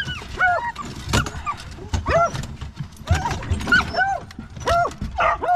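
Beagles yelping in short high cries that rise and fall, about two a second, excited as they are collared up for a rabbit hunt.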